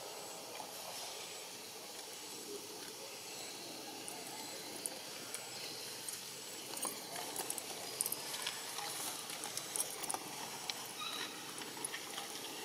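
Steady outdoor background hiss, with scattered faint clicks and ticks through the second half.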